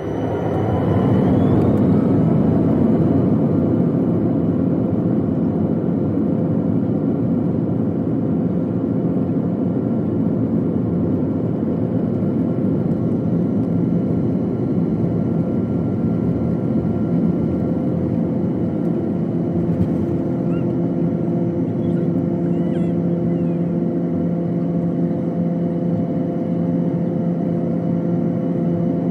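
Jet airliner's turbofan engines heard from inside the cabin beside the wing, spooling up to takeoff power with a rising whine and growing louder over the first two seconds. They then run with a steady loud roar and humming tones through the takeoff roll and the climb after liftoff.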